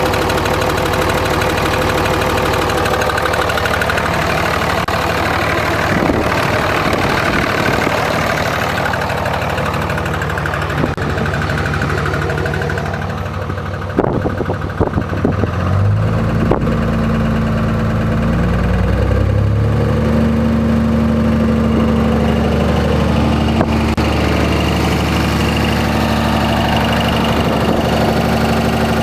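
Cummins 5.9-litre inline-six turbodiesel in a 2004.5 Ram 2500, running with a knock that the owner suspects is a rod knock. About halfway there are a few sharp clanks, then a steady deeper drone comes in, rising in pitch for a few seconds and then holding.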